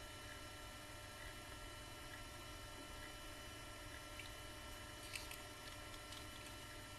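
Low steady electrical mains hum, with a few faint clicks about four and five seconds in from a plastic action figure part being handled.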